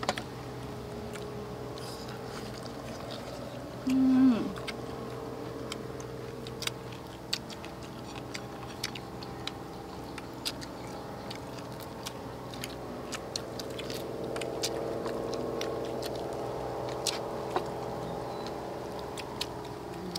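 People chewing and smacking their lips while eating chicken and leafy-vegetable wraps: many small wet clicks over a steady background hum. One short, louder low sound comes about four seconds in.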